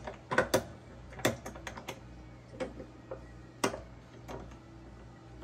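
Irregular light clicks and taps of hard objects being handled, about ten spread over the first four seconds, over a low steady hum.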